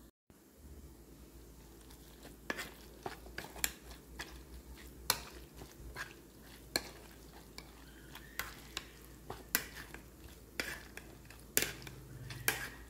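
Metal potato masher pounding cooked mutton in a steel bowl. It gives irregular sharp clinks and knocks as it strikes the bowl, starting about two and a half seconds in.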